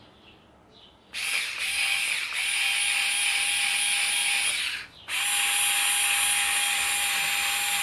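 Parkside PAS 4 A1 cordless screwdriver spinning without load at low speed, about 200 rpm, with a steady motor whine. It runs for a little under four seconds, stops briefly, then runs again.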